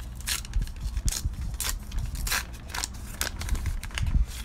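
Baseball card pack being opened and its cards handled: a series of short, irregular crinkles and rustles.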